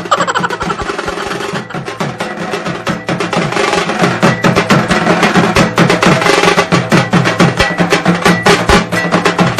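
Background music with a fast, steady drum and percussion beat. It opens with a short falling sweep and gets louder about four seconds in.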